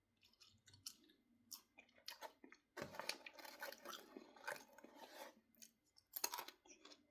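A person chewing popcorn: quiet, irregular crunching, busiest in the middle stretch.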